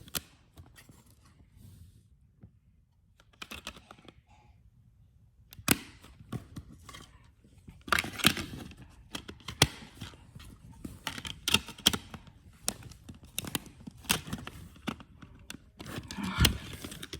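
Plastic DVD packaging being handled and opened: a run of sharp clicks, taps and light knocks with some rustling. The sounds are sparse for the first few seconds and come thick and fast from about six seconds in.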